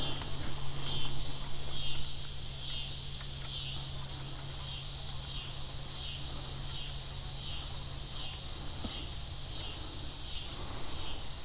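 Insects calling in a steady, evenly pulsing chorus, about two pulses a second, with a steady low hum underneath.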